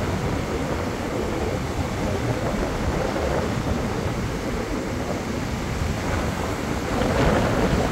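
Surf breaking and washing over a sandy beach in a steady rush, with wind on the microphone; it swells a little near the end.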